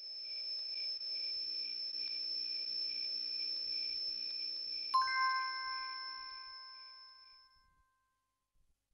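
Background film score: a steady high tone over a low wavering drone, with a single bell-like chime struck about five seconds in that rings out and fades. The music dies away near the end.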